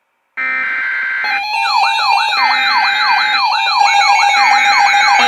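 Layered electronic warning-siren tones start about a third of a second in. A steady tone pulses on and off, and about a second later fast yelping pitch sweeps, about four a second, and a higher warbling tone join it.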